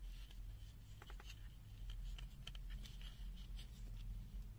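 Faint handling noise: light clicks and scratches of fingers on the opened multimeter's plastic case and circuit board, over a low steady hum.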